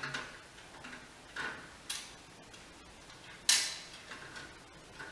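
Handling noise: a few separate clicks and scrapes as a small accessory box and its packaging are handled, the loudest about three and a half seconds in.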